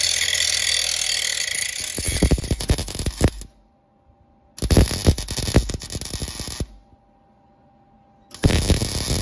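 Mechanical work on the engine: a steady rushing noise for about two seconds, then irregular clicks and metallic knocks of tools on the water pump and pulley. The sound cuts off suddenly twice, to near silence, before the knocking resumes.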